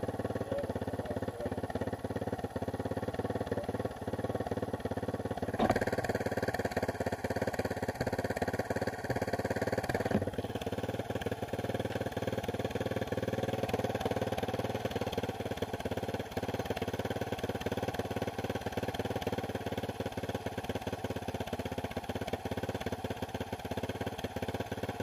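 Motorcycle engine idling steadily with an even rapid firing pulse. A brief knock about five and a half seconds in, and a smaller one near ten seconds.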